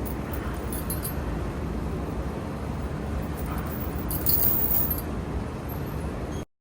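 Gym background noise: a steady low rumble with a few light metallic clinks about four seconds in, cutting off suddenly near the end.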